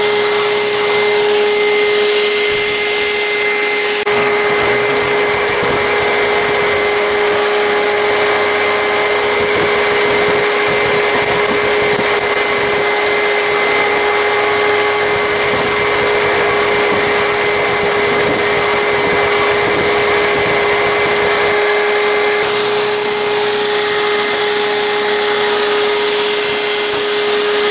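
Electrolux Pure i9 robot vacuum running with a steady motor hum and a whooshing air sound, its tone shifting slightly a few seconds in and again near the end.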